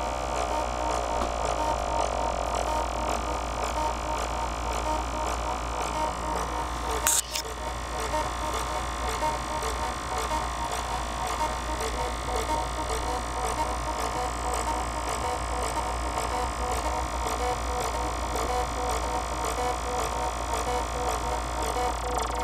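Korg littleBits synth patch of four oscillators and two sequencers playing a buzzy electronic drone with repeating sequenced notes over a steady ticking pulse and a low hum. One sharp click comes about seven seconds in.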